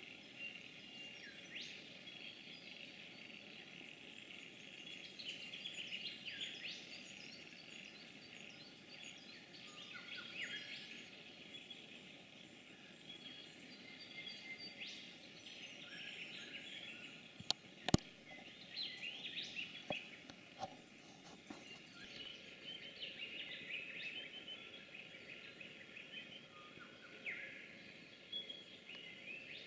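Faint bush ambience full of small birds chirping and calling in short quick whistles. About two thirds of the way through come two sharp clicks close together, the loudest sounds, followed by a few softer ticks.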